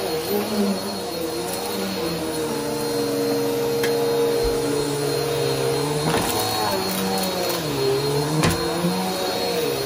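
Upright bagless vacuum cleaner running over carpet: a steady motor hum that sags briefly in pitch about six and eight seconds in, with a couple of light knocks.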